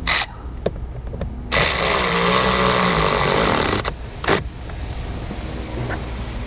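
Handheld power driver spinning a screw into the blower motor mounting, with one run of about two seconds and a short burst just before and after it.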